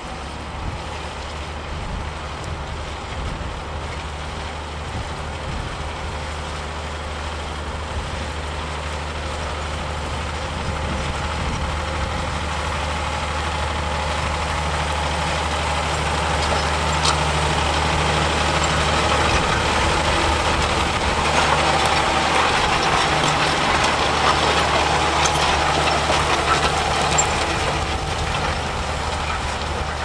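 John Deere 6150R tractor engine working steadily under load while pulling a reversible plough. The note is steady and low, and the sound grows louder through the middle of the stretch as the tractor comes close, easing slightly near the end.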